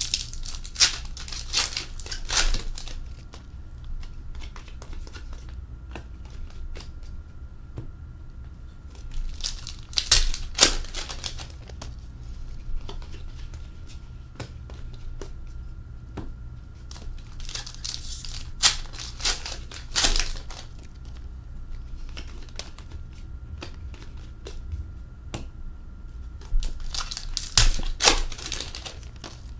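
Foil hockey card pack wrappers being torn open and crumpled by hand, in crackling bursts about every eight to nine seconds, with softer rustling of cards being handled between them.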